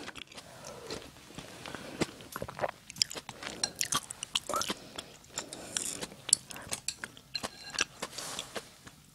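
Close-miked mouth sounds of chewing and swallowing a last mouthful, mixed with a scatter of small clicks and clinks. The clicks come from a spoon and then chopsticks being laid down in an empty ceramic bowl.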